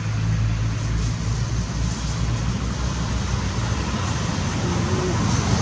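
Steady background noise: a low motor hum under an even hiss, with no distinct events.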